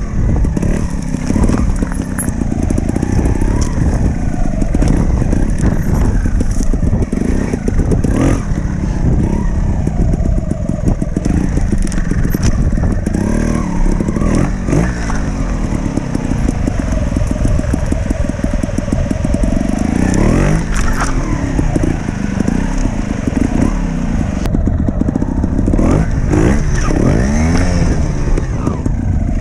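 Trials motorcycle engine running at low speed with repeated blips of the throttle, the revs rising and falling several times, with knocks and clatter as the bike picks its way over rough ground.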